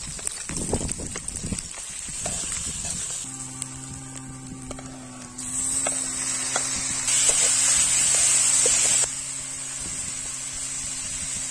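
Food sizzling and crackling as it fries in hot oil, with a louder hissing spell in the middle that drops off suddenly. A steady high buzz runs underneath, and a low steady hum comes in about three seconds in.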